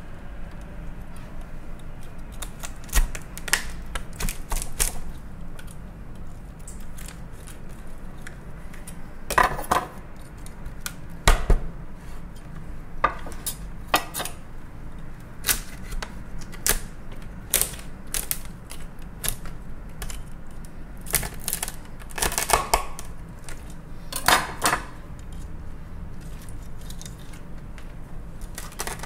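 Large kitchen knife cracking through a Maine lobster's shell as it is split in half lengthwise, knocking against a wooden cutting board. A string of irregular clicks and crunches, with a few louder cracks scattered through.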